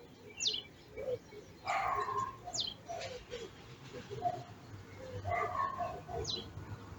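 Birds calling: three quick, high, downward-sweeping chirps spread across the stretch, with shorter lower calls in between.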